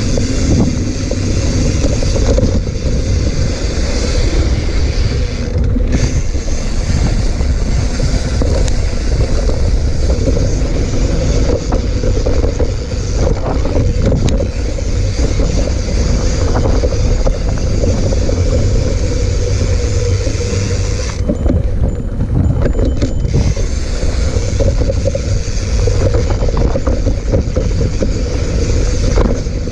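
Mountain bike riding down a dirt trail: steady low tyre rumble over the ground with wind buffeting the microphone and occasional knocks, easing briefly about two-thirds of the way through.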